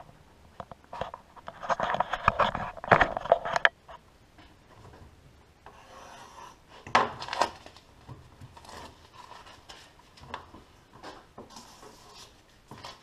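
Sheets of vinyl lettering and transfer paper rubbed and handled on a tabletop. A run of loud rubbing, rustling strokes comes a couple of seconds in, another burst at about seven seconds, then lighter scattered handling sounds.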